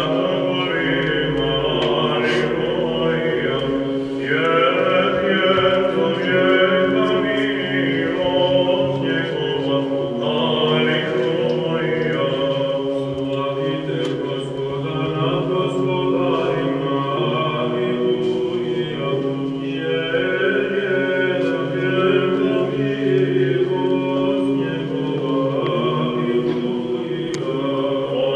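Choir chanting, several voices in long sustained lines over a held low note.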